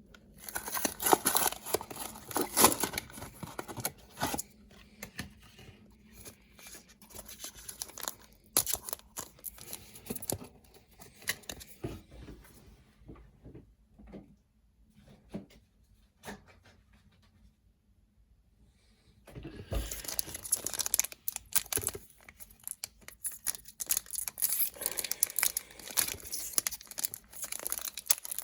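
Foil trading-card booster pack wrapper being torn open and crinkled by hand, then the cards handled. It is busy at the start and again over the last third, with a near-quiet gap of several seconds in the middle.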